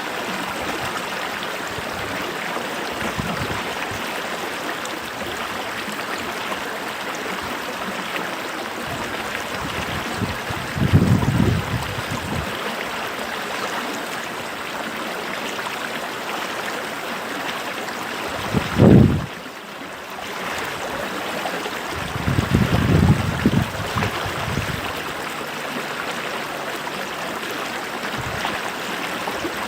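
Creek water flowing steadily, an even rushing noise, with three short low rumbles partway through, the loudest about two-thirds of the way in.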